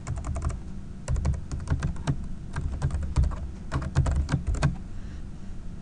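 Typing on a computer keyboard: a quick run of key clicks in short bursts, stopping near the end.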